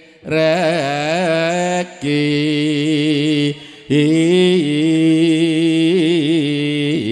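A solo singer chanting long held notes in Javanese vocal style, the pitch wavering and bending through each note. The singing comes in three phrases, with short breaks between them about two and three and a half seconds in.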